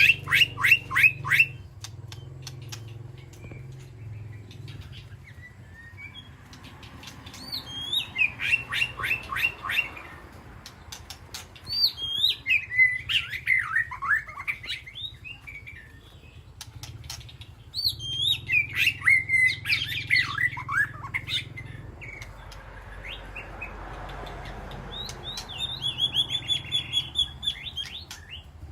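White-rumped shama singing in separate phrases a few seconds apart. Each phrase is a run of loud whistled notes that sweep up and down, mixed with rapid trills, over a faint steady low hum.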